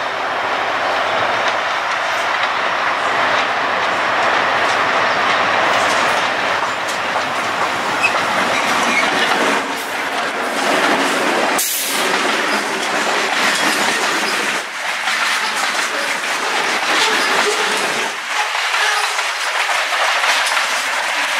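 Freight train passing close by: diesel locomotives go past, followed by freight cars rolling with a steady clickety-clack of wheels over the rail joints. A brief sharp high sound comes about twelve seconds in.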